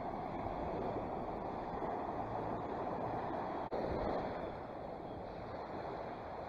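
Small waves washing onto a sandy beach, mixed with wind on the microphone, as a steady rushing noise. It breaks off for an instant about three and a half seconds in, then carries on a little quieter.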